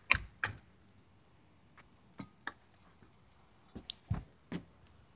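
Scattered light footsteps and scuffs on concrete and gritty dirt: a dozen or so soft, irregular clicks, with a small cluster about four seconds in.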